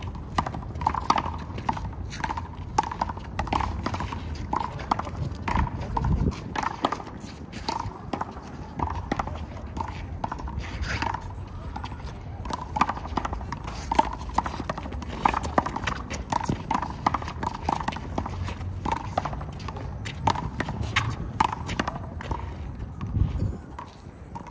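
A handball rally: the rubber ball is slapped by hands and smacks off the wall and the court again and again in a quick, uneven string of sharp knocks.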